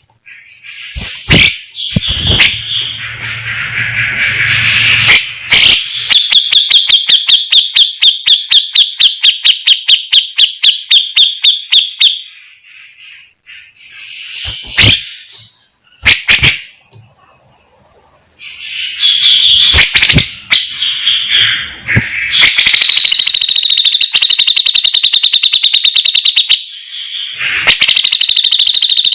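Cucak jenggot (grey-cheeked bulbul) singing loudly in long runs of fast repeated sharp notes, about seven a second, broken by a few short pauses.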